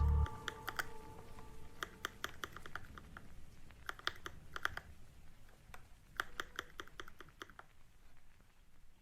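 Typing on a Keychron K6 mechanical keyboard with Gateron Red linear switches: irregular key clacks in short runs, thinning out near the end.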